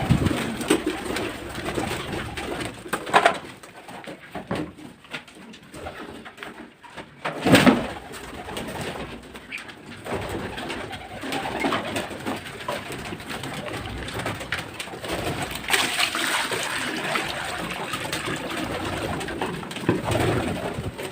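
Domestic pigeons cooing in their loft, with a sharp knock or clatter about seven seconds in.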